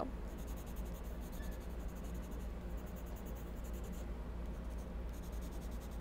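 Colored pencil scratching quietly across sketchbook paper as an area of the drawing is shaded in, over a steady low hum.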